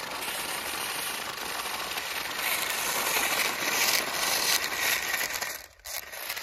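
Toy RC rock crawler and double-flip stunt car with their small electric motors and gears whirring and wheels scrabbling on dirt, as the crawler drags the stunt car on a rope. The noise gets louder in the middle and cuts out briefly near the end.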